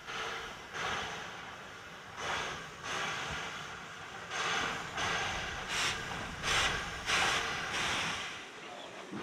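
LBSCR Terrier 0-6-0T steam tank engine chuffing slowly as it moves off. The exhaust beats come about three every two seconds, getting a little quicker and louder, with steam hissing from the open cylinder drain cocks.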